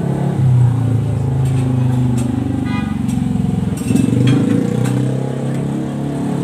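A steady low engine-like hum, with a brief higher-pitched sound near the middle.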